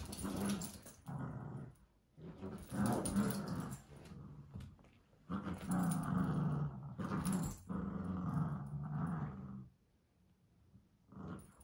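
Cavalier King Charles spaniel growling in long, low bouts while tugging at a plush toy in a tug-of-war with another dog. The growls break off for a moment about ten seconds in.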